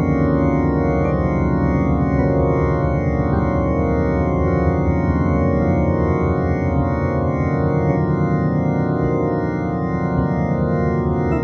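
MuseScore software playback of a single part holding dense chords, each tied across several bars so that they sustain and change only slowly.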